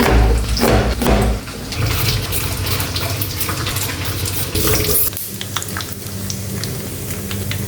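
Water running from a kitchen tap into a sink, with scattered light knocks.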